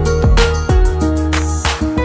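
Background music: a mellow track with plucked guitar-like notes, a deep bass and a steady beat.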